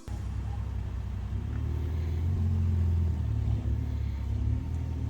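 A car engine running with a low rumble, its pitch rising and falling slightly a couple of times.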